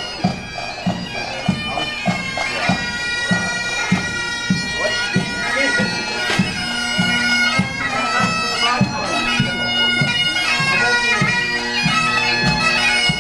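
Bagpipes playing a march tune over their steady drone, with a drum beating out a regular march beat, a little under two beats a second.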